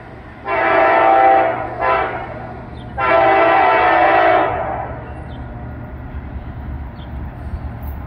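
Air horn of the approaching Norfolk Southern freight locomotive NS 264 sounding a long blast, a short one and another long one, which close the long-long-short-long grade crossing warning. After the horn stops, the train's low rumble continues as it draws nearer.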